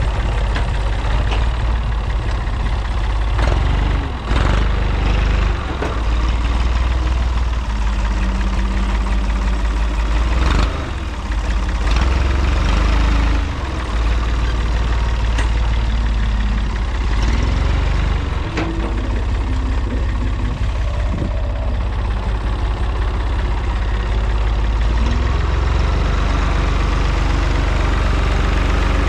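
Massey Ferguson MF30E industrial loader tractor's Perkins diesel engine running steadily under load while the front loader bucket digs into soil and lifts, with a few sharp knocks along the way.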